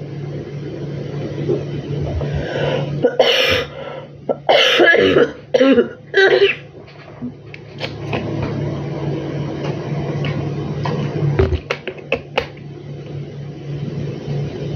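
A person sick with fever and a dry cough coughing: a fit of several hard coughs about three to six seconds in, over a steady low hum.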